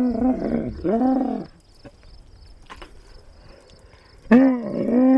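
Camel calling: a deep pitched bellow that rises and falls, twice near the start and once more near the end.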